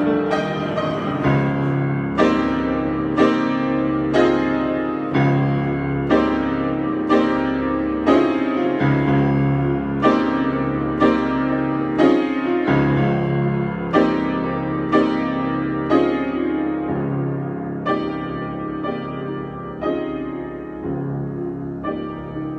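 Solo piano improvisation: chords struck about once a second and left to ring, growing gradually softer toward the end.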